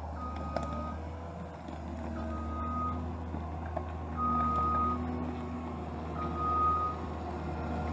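John Deere 1210E forwarder's diesel engine running steadily while its reversing alarm beeps about every two seconds, each beep just under a second long, as the loaded machine backs up.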